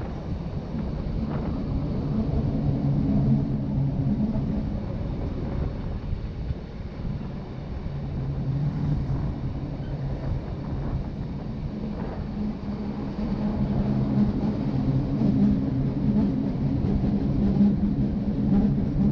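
Rhaetian Railway ABe 8/12 "Allegra" electric train running, a steady rumble with a low hum that swells louder twice.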